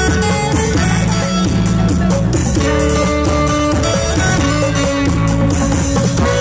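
Live band music of a Bodo song, amplified through loudspeakers: a held, stepping melody over a steady bass line.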